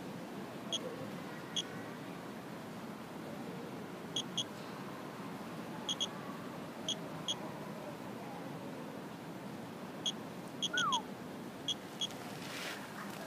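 Geiger counter beeping once for each detected count, short high chirps at random intervals, sometimes two or three close together. The rate is low, about one a second, matching the display's background reading of around 0.1 µSv/h.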